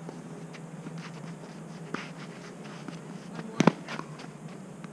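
A tennis rally on a clay court: a fainter racket hit about two seconds in, then a loud sharp double knock about three and a half seconds in, over a steady low hum.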